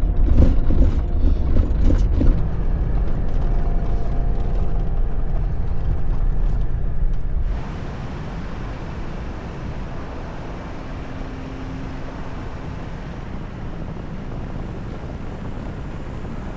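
Jeep Gladiator driving on a dirt road: a heavy low road rumble with frequent rattles and knocks. About halfway through it switches abruptly to a quieter, steady rumble.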